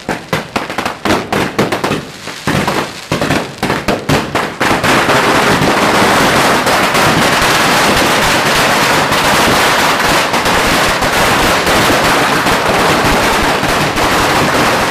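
Firecrackers going off, close and loud: quick separate bangs several to the second for the first few seconds, then from about five seconds in a long string exploding in one dense, unbroken crackle.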